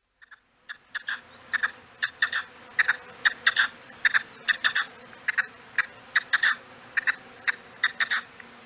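Game bird of the partridge and grouse kind calling: a rapid series of short, sharp chips, two or three a second and often in quick clusters. They begin abruptly just after the start.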